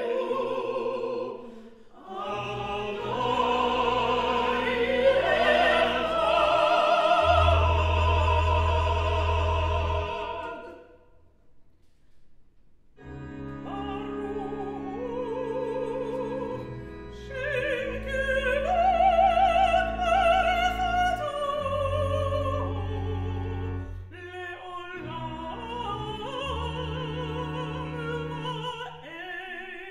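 Cantor and vocal quartet singing a Jewish liturgical setting over long held organ chords with deep pedal notes. The music breaks off for about two seconds near the middle, then resumes with the female cantor's solo voice over the organ.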